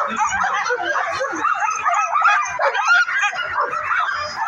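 A team of harnessed sled dogs yipping, barking and whining over one another in a dense, continuous chorus, the excited noise of dogs held at a race start.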